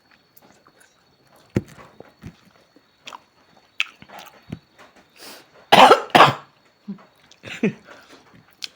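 A person coughing: two hard coughs in quick succession about six seconds in, then smaller coughs or throat clearing near the end, set off by eating spicy food. Faint mouth clicks and eating noises come before.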